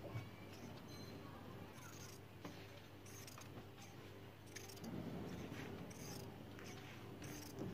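Large tailor's shears snipping through fabric, cutting it into long narrow strips: a series of short crisp snips, irregularly spaced.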